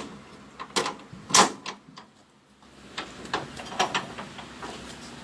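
A series of sharp, irregular clicks and knocks, the loudest about one and a half seconds in, with a short lull just after two seconds.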